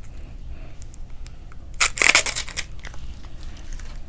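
Paper being rustled and torn: one loud burst of rustling lasting just under a second, about two seconds in, with faint handling taps around it.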